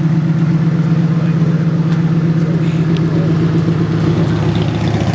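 Car engine idling, a steady low drone with a fine, even pulse.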